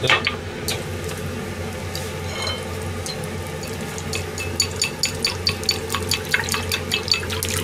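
Chopsticks beating eggs in a porcelain bowl, clicking sharply against the rim several times a second, starting about halfway through. Near the start there is a metal knock as the rectangular tamagoyaki pan is set on the gas burner's grate. A steady low hum runs underneath.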